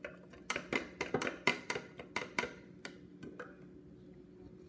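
Metal spoon stirring milk in a drinking glass, clinking against the glass in quick, irregular taps for a few seconds, then stopping.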